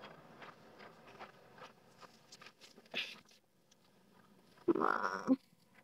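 Faint rustling and small handling noises of cloth and bedding as people shift on a mattress, with a short sharper sound about three seconds in and a louder rustle of about half a second near the end.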